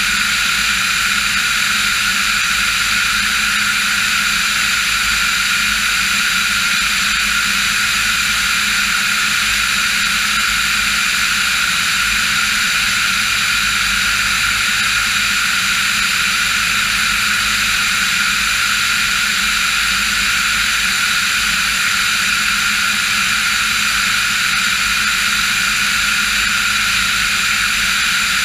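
Diamond DA40 NG's Austro AE300 turbo-diesel engine and propeller running steadily in flight, an even drone with a dense hiss of airflow over it.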